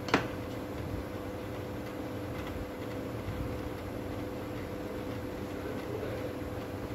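A steady background hum, with one sharp knock just after the start as a hand tool is set down on the workbench.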